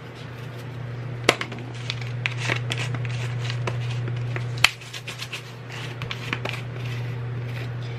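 Seasoning rattling out of a plastic shaker jar in quick shakes, the granules pattering onto a foil pan, with two sharp clicks, one about a second in and one near the middle. A steady low hum runs underneath.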